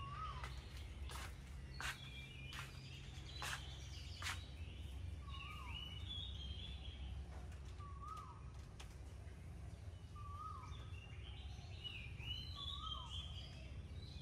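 Faint birdsong in garden trees: one bird repeats a short hooked whistle every couple of seconds, while other birds add higher chirps now and then. A few sharp clicks come in the first four seconds, over a steady low background rumble.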